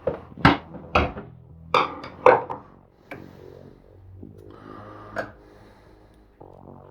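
Hard knocks and clunks of compressed-board cabinet parts being handled and set down: a quick run of sharp knocks in the first three seconds, then a couple more, one about five seconds in.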